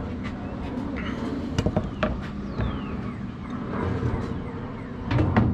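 Scattered clicks and knocks of a top-load washing machine's agitator and inner parts being handled during disassembly, with a louder knock near the end.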